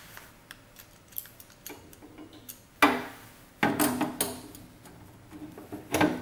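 Screwdriver turning a screw through a digital readout's bracket into a DeWalt planer's metal frame: small metal ticks and clinks, with a few louder knocks about three and four seconds in and again near the end.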